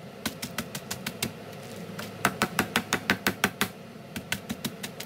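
Cucumber pieces in a zip-top plastic bag being beaten on a wooden cutting board to crack them for smacked cucumber salad: a rapid run of sharp knocks, about six a second, with a short pause about a second and a half in.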